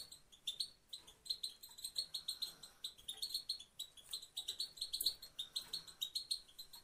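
Female European goldfinch calling: one short, high chirp repeated quickly, several a second, in runs with brief gaps.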